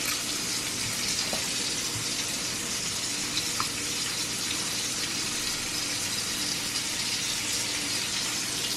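Smoked sausage frying in a pan: a steady sizzling hiss, with a faint steady hum underneath.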